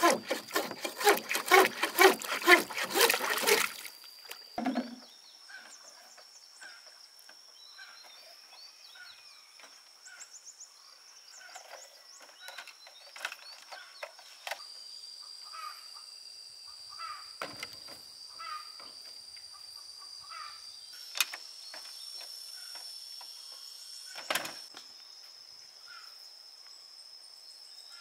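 Hand saw cutting a bamboo pole in quick rasping strokes, stopping after about three and a half seconds. Then quiet outdoor ambience with a steady high-pitched drone, scattered bird chirps and a few sharp knocks.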